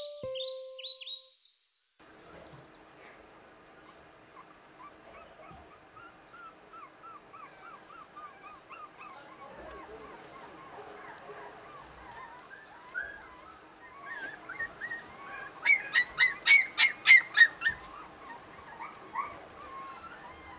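Pomeranian puppies whimpering in a long string of small, high-pitched squeaks. About fifteen seconds in, one breaks into a quick run of sharp yaps, about eight in two seconds, the loudest sound here.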